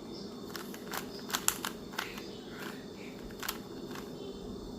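Plastic Rubik's cube being turned by hand: a few sharp, irregularly spaced clicks as its layers are twisted, over a steady low background hum.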